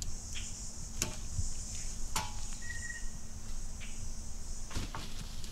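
A steady high insect buzz that cuts off near the end, over rustling in dry leaves. Three sharp metallic clinks come from a metal ladder tree stand's sections being handled, the middle one ringing briefly.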